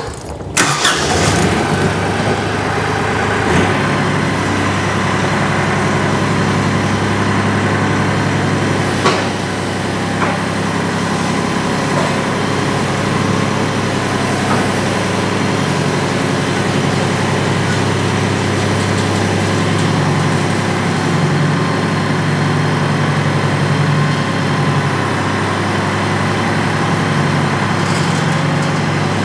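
Kioti compact tractor's diesel engine running steadily under light load as the tractor climbs onto a trailer, with a few short knocks along the way.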